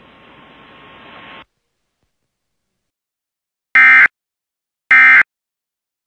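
Emergency Alert System end-of-message (EOM) data bursts: two short, loud, identical buzzy blasts of digital header tones about a second apart, signalling the close of the alert. Before them, a second and a half of faint radio hiss, then silence.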